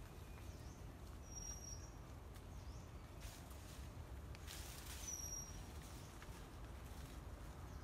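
Faint rustling of leaves and vines as branches overhead are pulled down, with two short high chirps about a second and five seconds in, over a low steady rumble.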